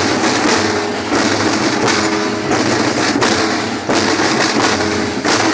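Marching percussion band of school drums playing loud, dense strokes.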